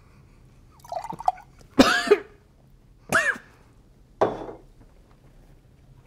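A man coughing and gagging in four short bursts, spluttering on a mouthful of coffee in disgust.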